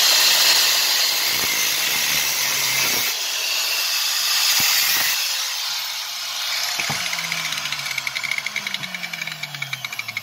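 Angle grinder with a cutting disc cutting a screwdriver slot into the steel head of a drill's chuck-retaining screw, with short dips in the grinding. About six seconds in it is switched off and spins down with a falling whine.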